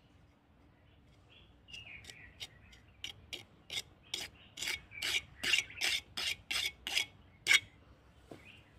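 A quick run of rasping scrapes, about a dozen at two to three a second, growing louder and then stopping. A bird chirps briefly before them.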